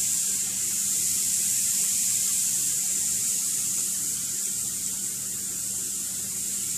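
Soy-based gyudon sauce bubbling and sizzling in a hot skillet of vegetables over high heat: a steady hiss, with a low hum underneath.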